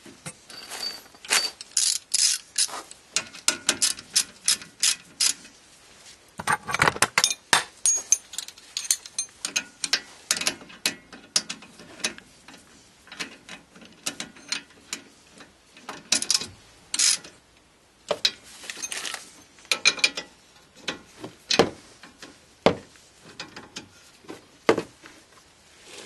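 Socket ratchet clicking in quick runs, with metal clinks in between, as the two rear brake caliper bolts are driven in.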